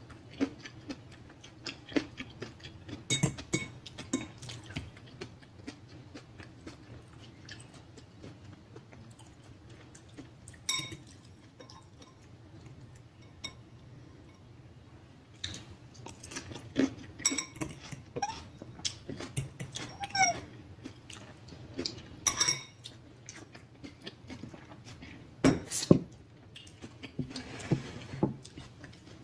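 Close-up eating of a buttery shrimp boil: wet chewing and smacking in irregular bursts, with occasional clinks of utensils against a dish, one ringing briefly about eleven seconds in.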